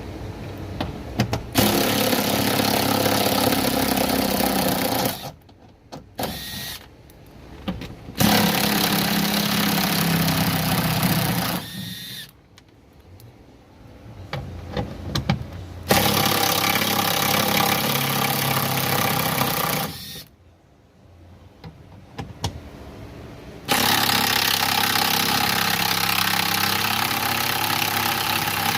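Cordless power tool spinning out the 10mm bolts of a car door's window regulator, running in four bursts of about four seconds each. Short pauses with light clicks of socket and bolt handling fall between the bursts.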